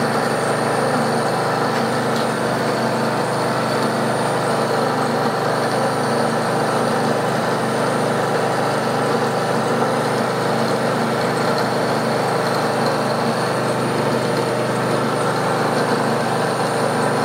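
Bridgeport milling machine running steadily, its countersink cutter taking a light cut along the edge of a mild steel valve chest cover.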